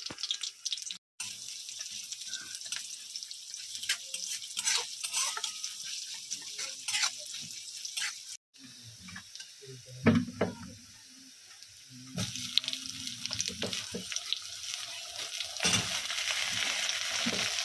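Kitchen cooking sounds: a utensil clattering and scraping, with a steady high hiss under it that grows louder and more even about twelve seconds in.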